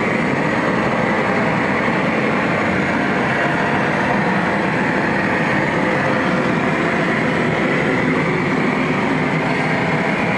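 Gas torch fed from a gas bottle, burning steadily with a constant rushing flame noise as it heats a welded steel tank lid to de-stress the distorted plate.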